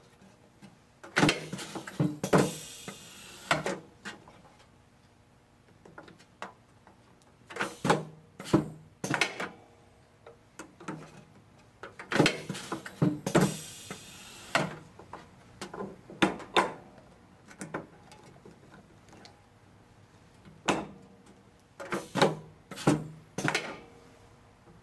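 CRD400 pneumatic fitting inserter cycling as it clamps a barbed fitting and thrusts plastic tubing onto it: clunks of the clamp and thrust mechanism with short hisses of air. Two such cycles come a few seconds in and about halfway through, among lighter clicks of tubing and fittings being handled.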